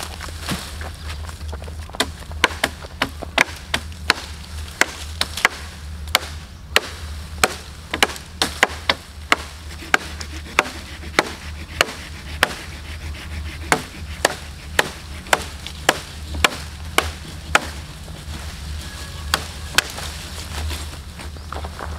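Machetes chopping into branches and saplings: a run of sharp, irregular wooden chops, one to two a second, from two people cutting at once.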